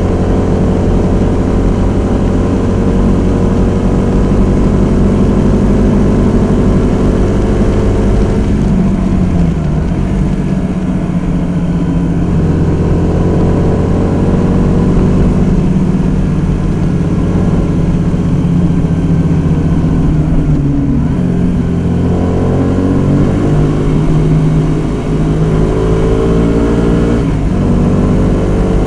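Honda Varadero 125's small V-twin engine running while the motorcycle is ridden, the revs drawn out and then dropping about nine seconds in, dipping again past the twenty-second mark and climbing once more near the end.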